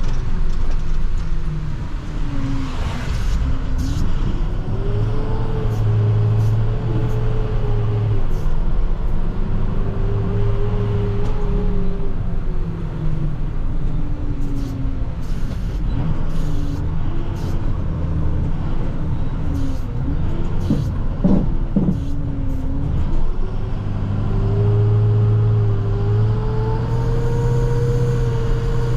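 Plow truck's diesel engine running as the truck is driven, its pitch repeatedly rising and falling as it speeds up and slows down.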